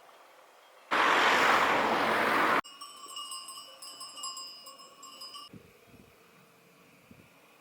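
A loud burst of rushing noise lasting under two seconds, then metallic ringing with several steady tones struck repeatedly for about three seconds, which cuts off abruptly.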